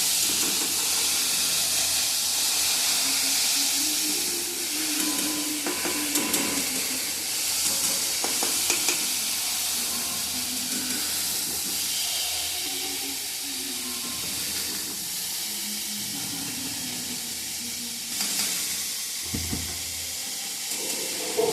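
Food sizzling in a cooking pan, a steady hiss with a few light knocks mixed in.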